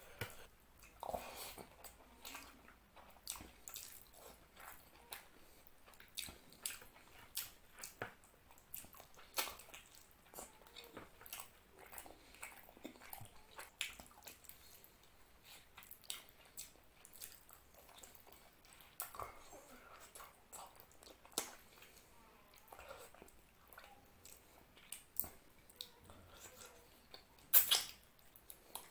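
Close-up eating sounds of curry and rice eaten by hand: wet mouth smacks and clicks while chewing, with soft squishing of rice and curry mixed by the fingers. One sharper, louder click comes near the end.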